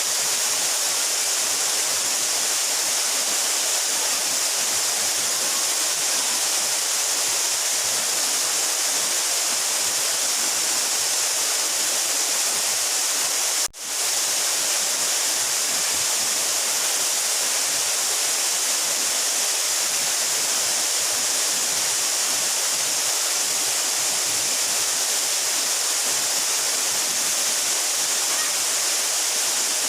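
A 12-metre mountain waterfall, its falling water making a steady, even rush with a hissy top. The sound drops out for a split second near the middle.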